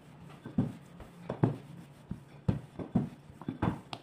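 Wooden rolling pin rolling dough out on a metal worktop, with about eight irregular knocks and taps as the pin goes back and forth.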